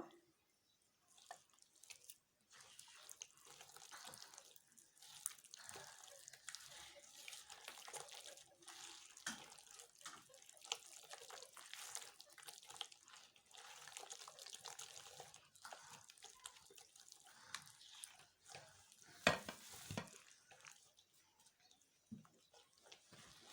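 Faint wet squishing and sloshing as oil is worked into the soft butter, sugar and cheese mixture in a bowl, with one sharper knock near the end.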